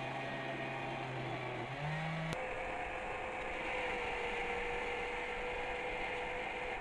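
An electric power tool's motor runs steadily, then about two seconds in the sound changes abruptly to a steady hum and hiss.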